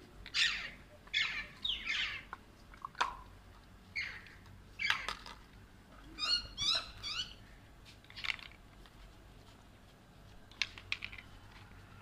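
Alexandrine parakeets calling: a string of short squawks falling in pitch, a quick run of pitched notes about halfway through, and a couple of short calls near the end.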